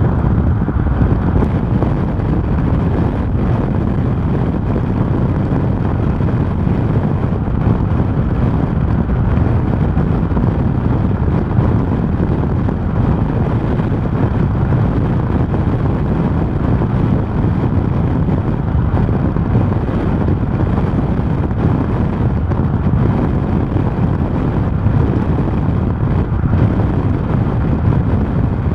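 Loud, steady low rumble of strong wind buffeting the microphone, mixed with the chase vehicle's road noise as it drives.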